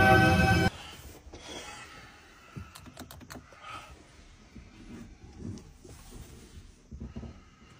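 Music cuts off abruptly under a second in. What follows is quiet, with scattered faint clicks and soft rustling inside a car cabin.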